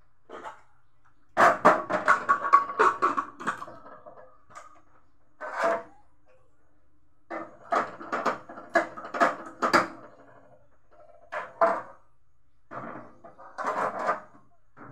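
Metal cookware clanking and rattling in several short bursts, with brief ringing, as an aluminium pressure cooker and its lid are handled and set on a steel gas stove.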